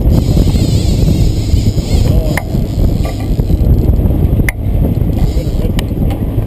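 Heavy wind buffeting on the camera microphone over the low rumble of a moving boat, with a few sharp clicks.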